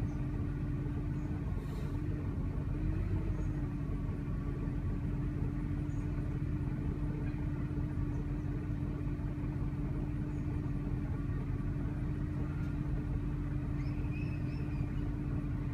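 2000 Jeep Grand Cherokee's 4.7-litre V8 idling steadily, the engine running without a break. The owner reports a rough idle that ends in stalling, with no fault code to explain it.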